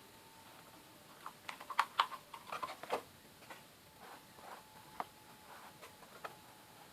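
Cardboard pieces being handled and worked by hand: light taps, clicks and brief scraping, bunched together about a second and a half in, then a few single clicks. A faint steady hum lies under them.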